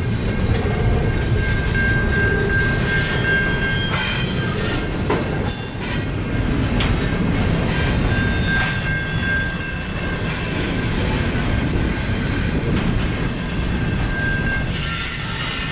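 CN double-stack intermodal container cars rolling past: a steady rumble and clatter of steel wheels on rail, with a thin, high wheel squeal that comes and goes three times.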